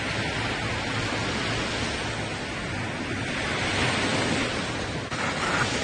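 Sea waves and wind buffeting the microphone: a steady rushing noise that swells about four seconds in.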